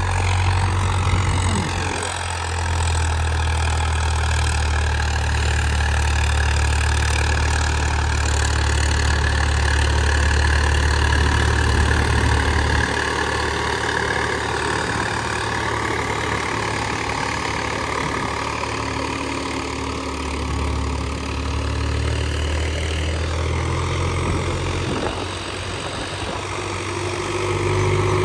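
Swaraj 744 FE tractor's three-cylinder diesel engine running steadily, its pitch wavering slightly as it goes.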